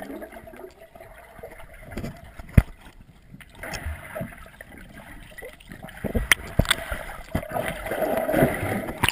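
Muffled underwater sound of swimmers moving through pool water, recorded inside a GoPro Hero 2's waterproof housing: churning water and bubbles, with sharp knocks, the loudest about two and a half seconds in and several more around six to seven seconds in.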